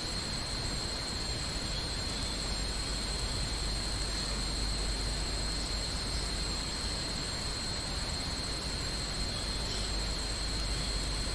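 Steady hiss with thin, high-pitched steady whines over it, unchanging throughout: background noise picked up by the stream's microphone.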